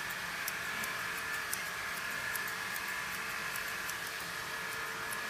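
Grooming scissors snipping through an Airedale Terrier's leg coat, light sharp clicks at an uneven two to three a second, over a steady faint hum.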